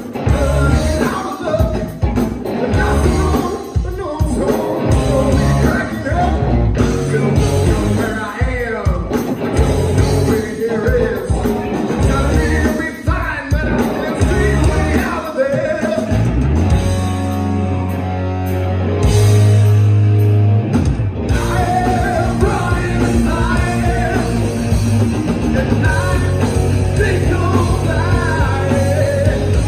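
A rock band playing live, with electric guitars, bass, drums and a singer. About two-thirds of the way through, the drumming drops back for a few seconds under long held low notes, then the full band comes back in.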